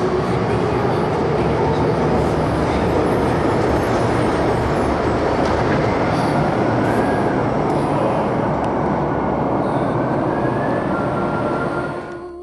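MTR M-Train electric multiple unit running through an underground station platform at speed without stopping: a loud, steady rush of wheels and running gear, with a thin whine rising in pitch in the second half. The sound cuts off sharply near the end.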